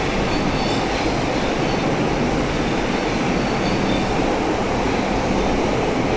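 Steady rolling noise of a Eurotunnel Le Shuttle train running through the Channel Tunnel, heard from inside its enclosed vehicle-carrying wagon, with a few faint high squeaks.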